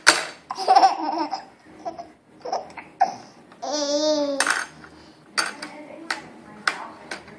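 Baby laughing and babbling in short bursts, with one long wavering squeal about halfway through. Several sharp clicks come in the second half.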